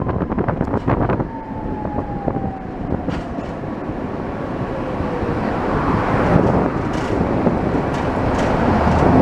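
Tatra T2 tram running on its rails, with sharp clicks of the wheels in the first second and a whine that falls in pitch over the next couple of seconds. The rumble then grows louder toward the end.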